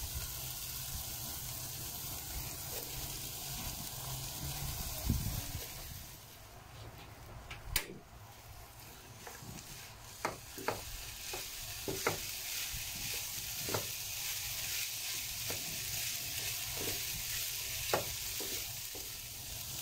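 Carrots, chicken, onion and garlic frying in oil in a pan, sizzling steadily. After about six seconds the sizzle drops, and a silicone spatula stirring the pan adds irregular sharp knocks and scrapes against the pan.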